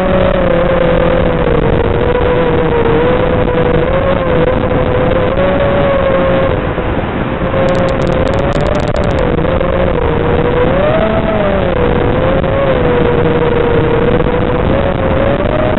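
FPV racing quadcopter's brushless motors and 5-inch propellers (KingKong 2205 2300KV) whining in flight over a rush of wind noise. The pitch stays mostly level, rising and dipping with throttle changes, with a clear rise around the middle.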